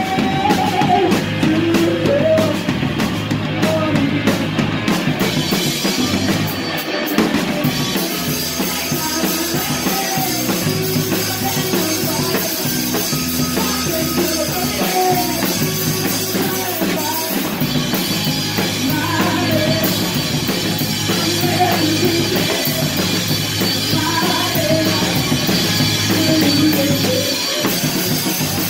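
Live rock band playing, with the drum kit close and prominent: drums and cymbals played through the song.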